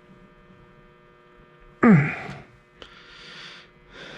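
Steady electrical mains hum. About two seconds in comes a loud, short sound that falls in pitch, then a click and some short stretches of hiss.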